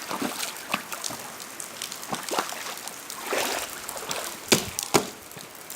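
Water sloshing and splashing, with scattered sharp knocks; the two loudest knocks come about half a second apart near the end.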